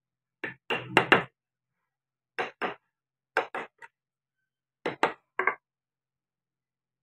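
Mallet striking a wood-carving chisel: sharp wooden knocks in four quick groups of two to four taps as the chisel cuts into the wood.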